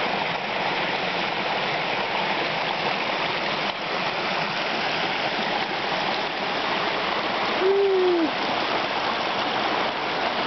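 Steady rush of a small waterfall splashing down a rock face. About eight seconds in, a brief vocal tone sounds over it, falling in pitch at its end.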